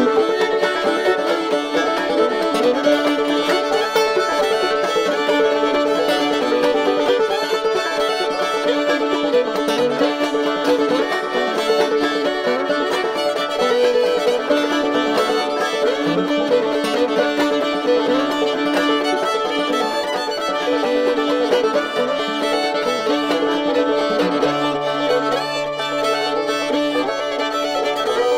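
Background music: an old-time tune played on fiddle and clawhammer banjo, with a low held note coming in near the end.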